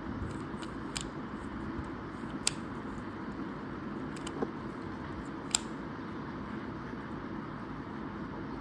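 Four sharp, isolated plastic clicks spread over several seconds as a Rubik's Cube's corner pieces are twisted by hand, over a steady background hiss.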